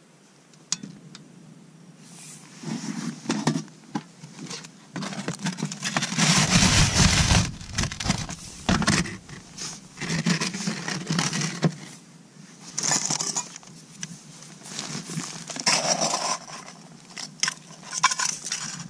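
Handling noise around a portable butane camping stove as it is lit: sharp clicks, scraping, clattering and plastic crinkling in irregular bursts, loudest about six to eight seconds in.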